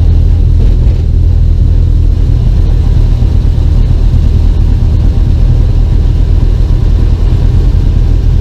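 Classic Mini's four-cylinder A-series engine running steadily as the car drives along, heard from inside the small cabin, with a loud low rumble.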